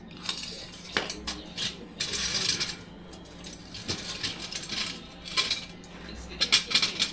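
Metal parts and tools clinking and knocking irregularly, with a few short hissing bursts, over a steady low hum.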